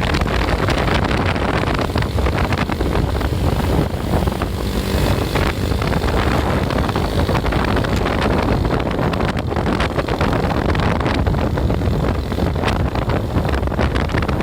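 Wind buffeting the microphone over the steady running noise of a moving vehicle on the road.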